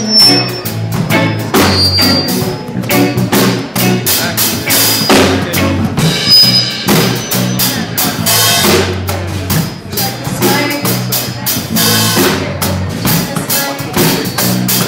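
A live rock band playing, with a drum kit beating out a steady rhythm over changing low bass notes.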